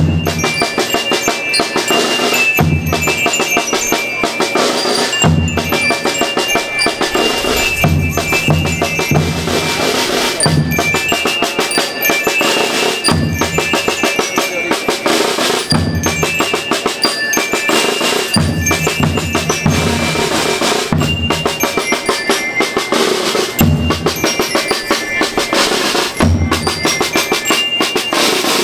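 School rhythm band playing: snare drums keep up a dense, continuous beat while bass drums strike in groups with short breaks between them. Above the drums, metallic bell tones from bell lyres ring out a melody in phrases.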